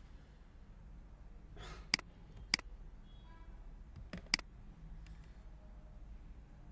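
Computer mouse buttons clicking: three or four sharp single clicks, spread out, over a low steady hum.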